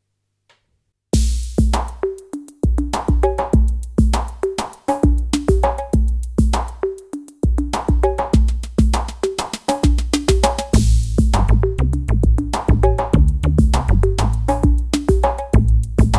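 Electronic track played back from a Roland MV-8000's sequencer at 100 BPM: a TR-808-style drum kit and bass lines built with its virtual analog synth, plus chords. It starts about a second in, and the low bass gets fuller and busier about eleven seconds in.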